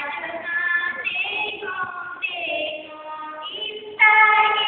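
Young voices singing a melody in phrases of held notes with sliding pitch bends.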